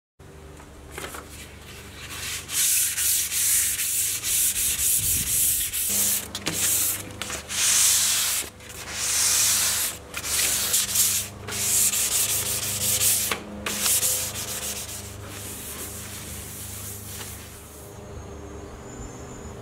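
Hand sanding the finished face of a hardwood serving tray after its coats of finish: repeated back-and-forth rubbing strokes of abrasive on wood, about one a second, easing off after about fifteen seconds over a steady low hum.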